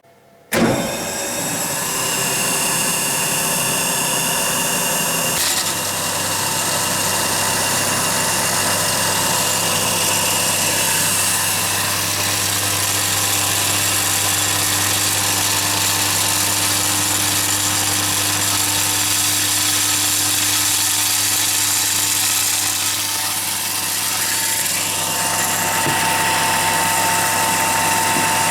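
Estarta 301 CNC centerless grinding machine running: a loud, steady mechanical hum with several steady high tones over it. It comes in suddenly about half a second in.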